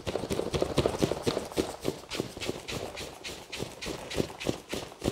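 A rapid, even run of hard taps, about four a second, that keeps going without a break.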